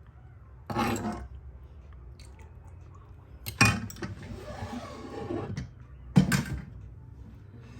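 A spoon scraping and knocking against cookware while soup is dished up: three short clatters, the middle one trailing into a brief scrape, over a low steady hum.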